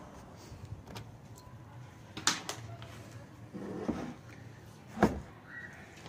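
Plastic fan heater being handled on a workbench: a few sharp clicks and knocks, a short scrape, and one louder knock about five seconds in as the casing is set down.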